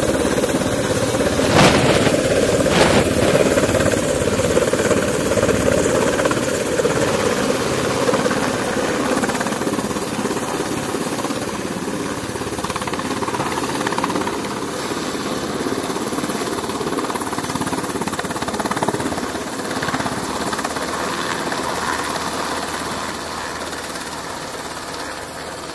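MH-60R Seahawk helicopter lifting off and flying away: the rotor and twin turboshaft engines make a loud, steady noise, loudest at first and slowly fading as it moves off. Two short bursts of noise stand out about two and three seconds in.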